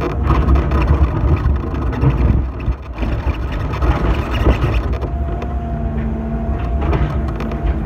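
Excavator's diesel engine running steadily, heard from the operator's cab. A thin steady whine joins it about five seconds in and lasts about two seconds.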